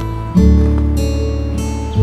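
Background music: acoustic guitar strumming over a steady bass, with a new chord struck about every second and a half.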